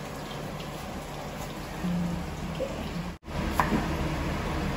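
Kitchen knife slicing onion and cucumber on a wooden cutting board: a few scattered taps of the blade against the board, the sharpest near the end.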